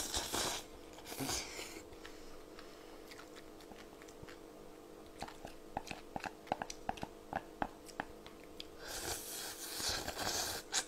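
Close-miked eating: slurping cold naengmyeon noodles at the start, then chewing with a run of small wet clicks, then a longer slurp from the bowl raised to the mouth near the end.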